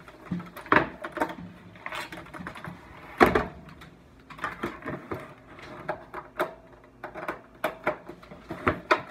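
Irregular clicks, knocks and rubbing of a phone being handled and propped in place against a keyboard's metal casing, with a couple of louder thumps.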